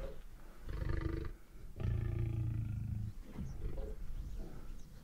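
African lion growling from cover: a short growl, a longer one about a second in, a still longer one lasting over a second, then a run of shorter grunts that fade. It is the warning of a lion at bay, in a standoff with the hunters.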